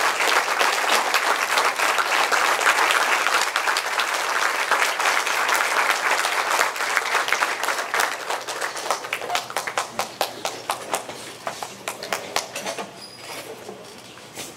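Audience applauding, steady at first, then thinning to scattered claps about nine seconds in and dying away near the end.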